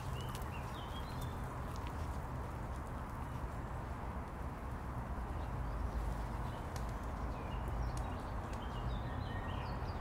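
Park ambience: a steady low rumble of distant city traffic, with small birds chirping in short bursts near the start and again in the last few seconds, and a few light ticks.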